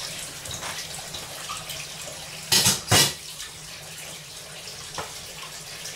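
Water running steadily in a kitchen, with two short loud splashing bursts about two and a half and three seconds in.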